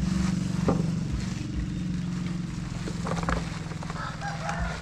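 A mass of captured truncate-snouted burrowing frogs (Glyphoglossus molossus) calling together in a low, steady, buzzing croak. Over it come a few soft knocks and rustles as the sack of frogs is tipped into a plastic basin.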